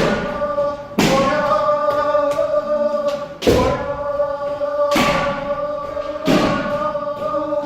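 Kendo students shouting long, drawn-out kiai together, with sharp thuds from stamping footwork and strikes landing about five times at uneven intervals of one to two and a half seconds.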